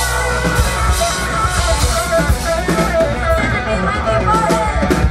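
Live band playing rock music: electric guitars playing a melody of repeated notes over drum kit and bass.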